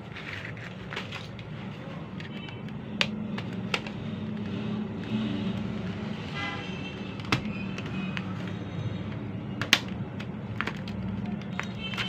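Sharp plastic clicks and snaps from a USB numeric keypad's casing being pried open with a small screwdriver, the loudest a little under ten seconds in, over a steady low background hum. A short pitched tone sounds about six and a half seconds in.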